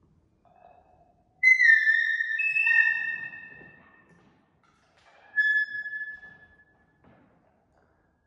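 Two high, whistle-like musical tones, each starting sharply and fading over a couple of seconds. The first comes about a second and a half in, sinks slightly in pitch and has a second, higher note joining it. The second, shorter tone comes about five seconds in.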